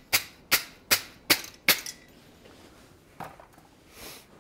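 Wire brush scrubbing a hot forged steel leaf on the anvil: five quick, sharp strokes about two and a half a second, stopping about two seconds in, cleaning the surface while the metal is still hot. A faint knock follows about a second later.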